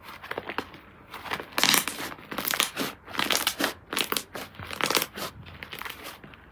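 Slime being squished and pressed by hand, giving irregular bursts of sticky crackling and popping.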